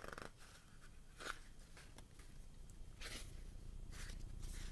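Faint scattered rustles and small clicks over a low background hum.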